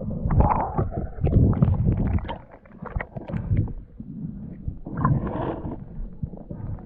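Water splashing and sloshing in irregular surges, loudest in the first couple of seconds and again about five seconds in.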